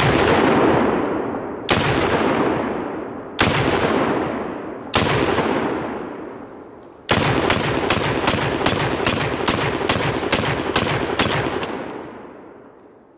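Universal M1 Enforcer pistol firing .30 Carbine rounds: four single shots about a second and a half apart, then a rapid string of about a dozen shots at roughly three a second, each shot trailing a long echo.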